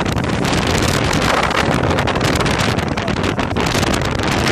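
Strong wind of about 6 to 8 metres per second buffeting the microphone aboard a small sailboat under sail: a loud, steady rush with constant crackling.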